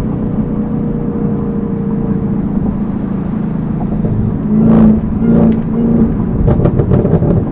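Supercharged V8 of a Chevrolet Camaro ZL1 with a cat-back exhaust and cold air intake, running steadily under way. About four and a half seconds in it swells into a loud burst of throttle. Two shorter surges and a run of short sharp pops follow near the end.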